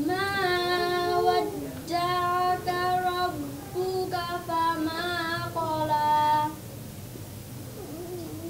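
A girl's solo voice singing or chanting without accompaniment, in three phrases of long held notes with ornamented turns between them. It stops about six and a half seconds in.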